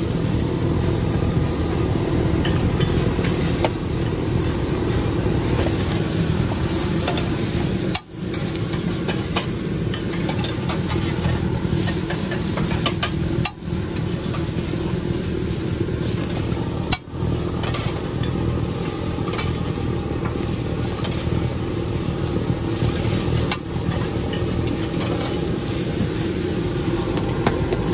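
Food sizzling while it is stirred with a metal utensil, cooking at a street-food stall, with steady background noise and three brief drops in the sound.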